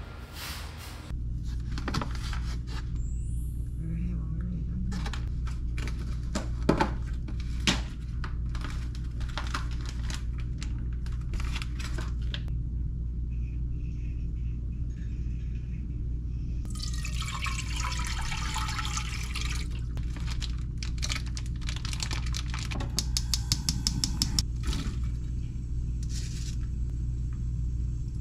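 Kitchen cooking sounds: plastic meal-kit packaging being handled and torn, with scattered clicks and knocks of containers and a pan, over a steady low hum. A quick run of even clicks comes about three-quarters of the way through, and sauce is squeezed from a pouch into the pan near the end.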